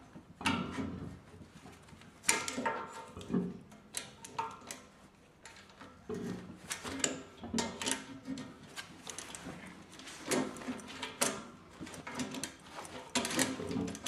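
Locking pliers turning a slotted, seized radiator fitting out of its threads: irregular metal clicks, scrapes and creaks as the jaws grip, slip and reset on the fitting.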